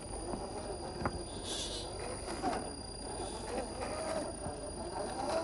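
1/10-scale RC crawler's electric motor and gear drivetrain whining, the pitch wavering up and down with the throttle, with a few sharp clicks and knocks from the truck over rough ground.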